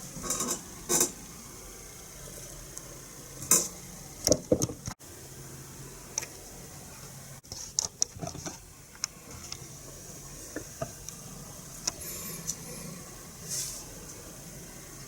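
Scattered clicks, knocks and light clinks of a Marushin PPK/S model gun and its small parts being handled and worked on, the loudest knocks in the first five seconds and smaller clicks after.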